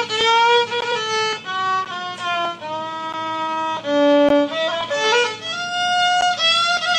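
A solo violin playing a melody of held single notes, sliding between some of them.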